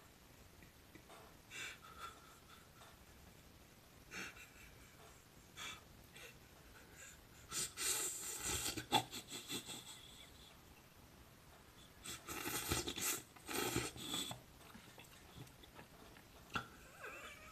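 A man's breathy, wheezing laughter, a few short gasps at first, then two longer fits of pulsing, hissing laughs about halfway through and again two-thirds of the way through.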